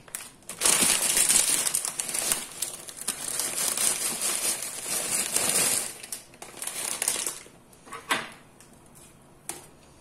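Plastic packaging crinkling and rustling for about seven seconds as vegetables are tipped out into chicken broth, followed by a couple of light knocks.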